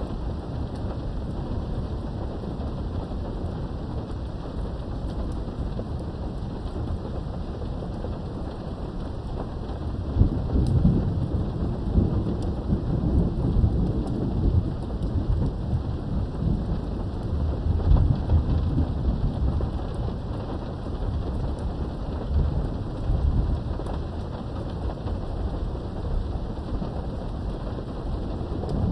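Steady rain with thunder, heard from indoors behind a window. About ten seconds in, a long low rumble of thunder swells and rolls on for several seconds before easing back under the rain.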